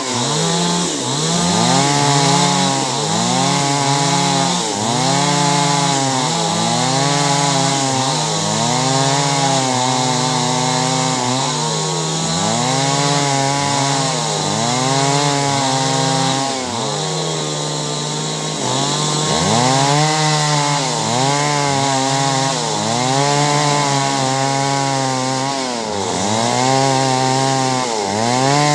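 Two-stroke chainsaw cutting clove-tree wood, its engine pitch rising and falling about once a second as the throttle is worked, over a steady lower drone.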